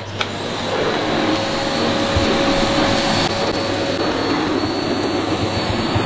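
Amazon Basics 700 W bagless cylinder vacuum cleaner switched on, its motor rising to speed over about the first second, then running steadily with a thin high whine while the floor brush is worked over carpeted stairs.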